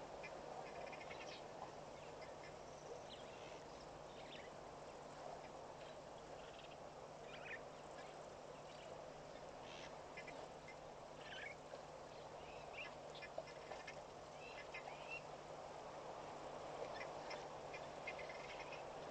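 Faint birds calling, with many short, scattered chirps and calls over a steady hiss and a low steady hum.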